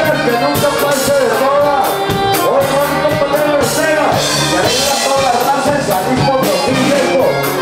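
Latin band music with singing and a melody line over a steady drum beat.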